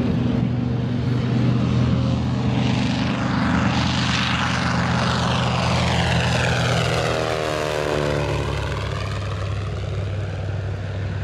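Grumman TBM-3R Avenger's Wright R-2600 fourteen-cylinder radial engine running at full power on the takeoff run and climb-out. As the plane passes close by, about eight seconds in, the engine's pitch drops and the sound then eases slightly.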